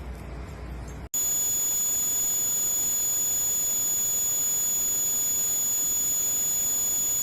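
Low rumbling noise for about a second, then a steady, high-pitched electronic tone over hiss that starts abruptly and holds at one level for about six seconds before cutting off suddenly.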